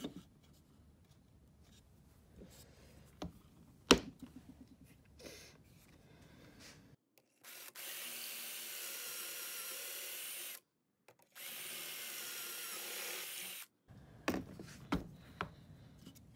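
Power drill with a pocket-hole bit boring through a pocket-hole jig's guide into a wooden board: two steady runs of about three seconds each with a short pause between, one per hole. Knocks of the board being set against the jig come before and after.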